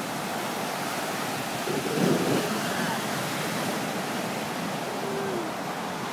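Surf breaking and washing up on a sandy beach in a steady noisy rush, with a brief louder surge about two seconds in. Faint voices of people in the water come through now and then.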